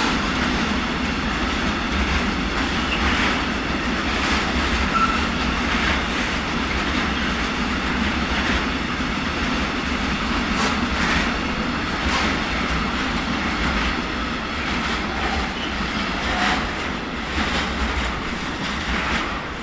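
Container freight train's wagons rolling past with a steady low rumble, their wheels clicking irregularly over rail joints and points. There are a couple of brief, faint wheel squeals, about five seconds in and again near the end.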